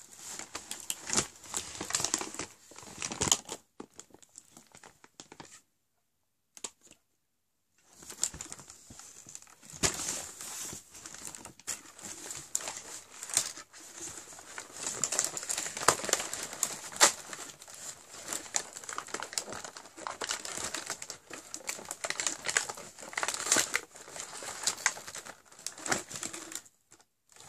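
Plastic wrapping and cardboard crinkling and rustling in the hands, with many small clicks, as a small bar of soap and the cardboard doors of an advent calendar are handled. The handling stops for about two seconds a few seconds in, then goes on.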